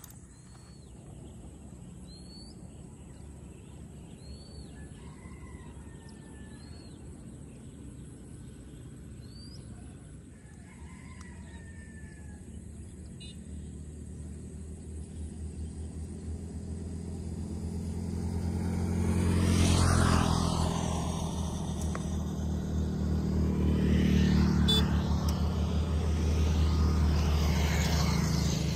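Birds giving short, repeated hooked chirps, and a rooster crowing, in a rural setting. From about halfway a vehicle's engine rumble builds and passes, and a second vehicle passes near the end, louder than the birds.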